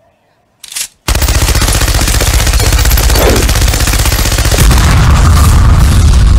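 Sustained machine-gun fire, very rapid shots in one unbroken stream starting about a second in. A heavier low rumble builds under it for the last second and a half before it cuts off suddenly.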